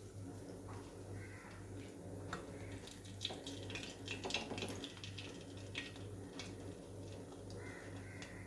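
Light kitchen handling sounds: scattered small clicks and taps over a steady low hum.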